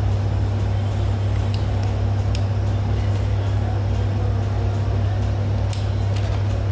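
A steady low machine hum, with a few light clicks and taps from tools being handled in a tool bag.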